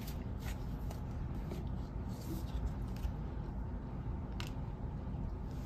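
Tarot cards being handled as one more card is drawn: faint soft rustling and a single sharp click about four seconds in, over a low steady room hum.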